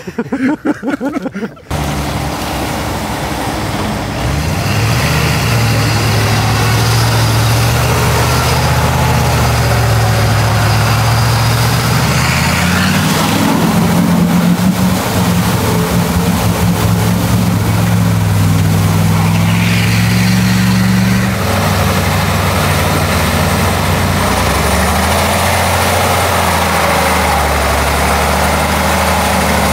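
Heavy off-road truck engine running under load, its pitch climbing a few seconds in and again near the middle, then dropping back about two-thirds of the way through.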